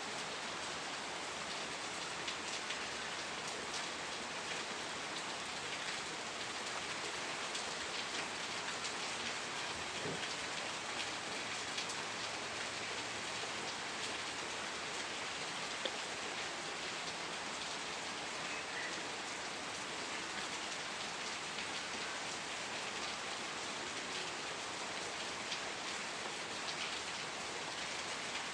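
Steady rain falling and pattering on surfaces, an even hiss with scattered individual drops ticking.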